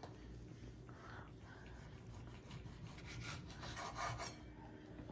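Knives slicing through cured meat and scraping on wooden cutting boards, in faint uneven sawing strokes.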